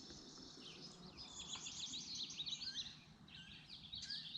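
Faint outdoor birdsong: many quick, high chirps and twitters overlapping, busiest from about a second in.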